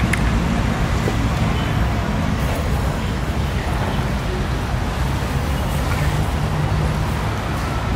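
Steady street background noise: a low traffic rumble with faint voices mixed in.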